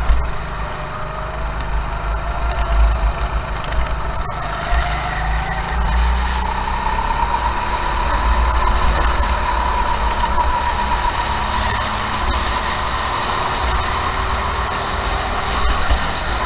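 Kart engine running at racing speed, heard on board, its pitch climbing steadily for several seconds and then holding high. Heavy wind rumble on the microphone runs underneath.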